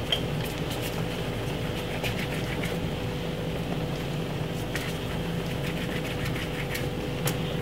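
A steady kitchen hum with a faint steady tone running through it, with light scattered taps and clicks from hands working dumpling dough in a glass bowl.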